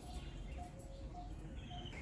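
A bird repeating a short single-note call about twice a second, over a steady low rumble.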